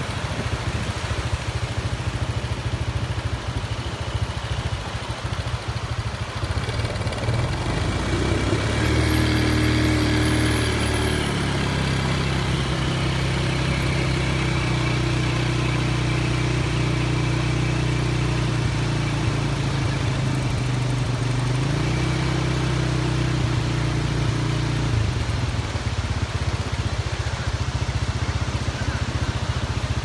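A steady rush of surf, with an engine running steadily that joins about eight seconds in, shifts pitch a couple of times, and stops about five seconds before the end.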